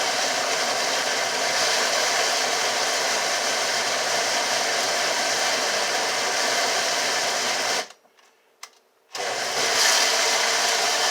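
Kitchen blender running steadily, chopping banana peels and food scraps in water into a thick slurry. It stops for about a second near the end, with one small click, then starts again a little louder.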